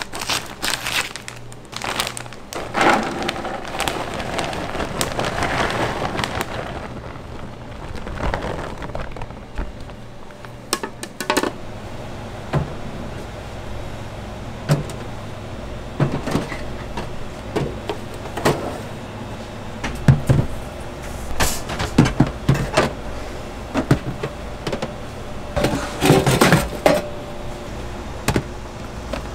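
Kitchen food-preparation noise: irregular knocks and clatters of utensils and cookware over a steady low hum that gets louder about two-thirds of the way through.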